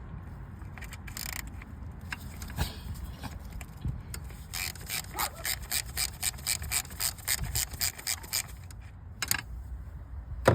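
Socket ratchet wrench clicking in a quick, even run of about four to five clicks a second, lasting a few seconds, with a few scattered tool knocks around it.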